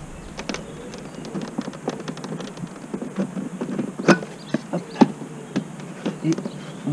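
Irregular plastic clicks and knocks as an electric-car charging cable and its connector are handled at a wall-mounted charging station, with two louder knocks about four and five seconds in.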